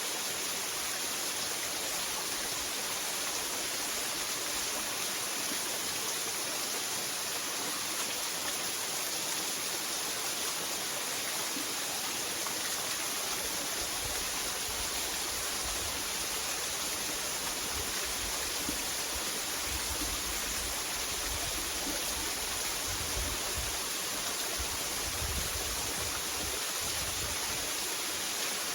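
Waterfall and running water: a steady, even rushing hiss.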